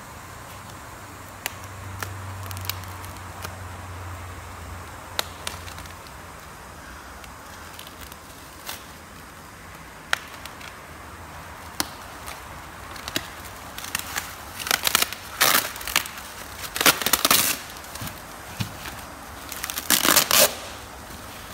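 Bubble wrap and plastic packing being handled and pulled off a new steering wheel. At first there are scattered crinkles and clicks, then, in the last third, bursts of loud crinkling and rustling.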